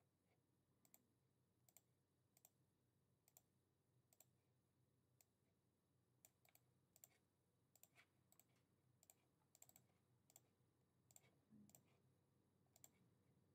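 Faint computer mouse clicks, short and sharp, scattered irregularly at about one or two a second over near silence.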